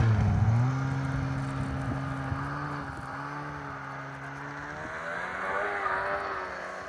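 Snowmobile engine running at a steady pitch under load as the sled climbs a slope, growing fainter as it moves away, with a brief swell in loudness about five seconds in.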